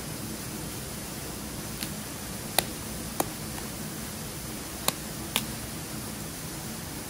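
Five sharp cracks of dry wood, scattered across a few seconds, over a steady hiss.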